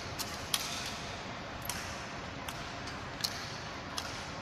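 Honor guard rifle drill: sharp clacks of hands slapping and catching rifles as they are spun, about six separate strikes spaced unevenly, over a steady background hiss of the hall.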